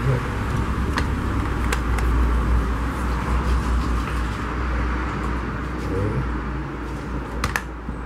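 Steady low background rumble, with a few light clicks and taps as the wires inside an opened blender base are handled.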